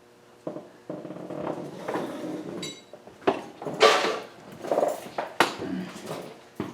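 Metal tools and engine parts being handled: scraping and rustling, a short metallic ping, then a string of sharp clinks and knocks, the loudest about four seconds in.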